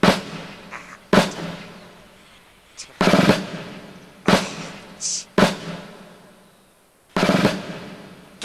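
Film-score percussion: about six heavy drum hits, a second or two apart, each ringing out and fading away. Two of them, near the middle and near the end, are longer than the rest.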